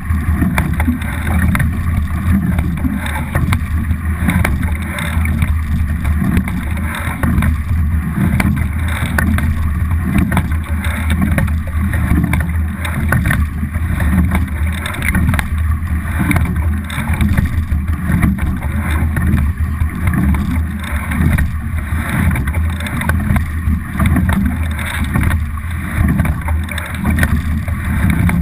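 Steady wind buffeting and water rushing from a camera mounted on a racing double scull under way, with a heavy constant low rumble.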